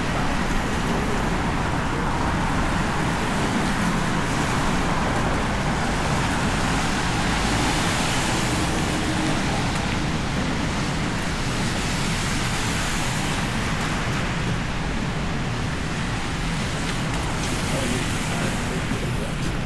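Steady city street traffic noise, with passing vehicles swelling louder about three times.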